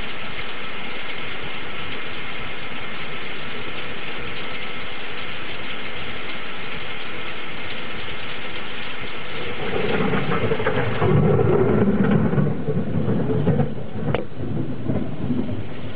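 Steady rain hiss, then a low rumble of thunder rolls in about ten seconds in, loudest for a few seconds before easing off.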